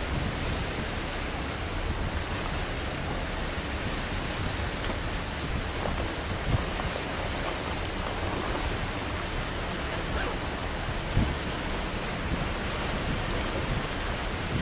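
Steady rushing noise of wind and harbour water, with brief low wind buffets on the microphone twice, about six and eleven seconds in.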